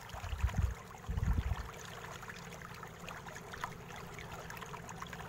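Two brief, low, muffled bumps in the first second and a half, then a faint steady hiss with a few light ticks, as a bare laptop motherboard is handled.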